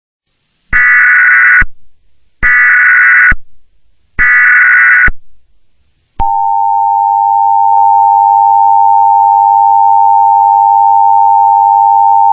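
Emergency Alert System broadcast: three short bursts of screeching SAME header data, each about a second long. About six seconds in, the two-tone EAS attention signal starts and holds steady.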